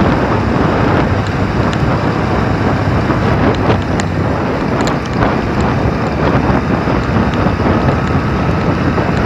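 Wind rushing over the microphone of a motorcycle riding at speed, with the bike's engine and road noise running steadily beneath it.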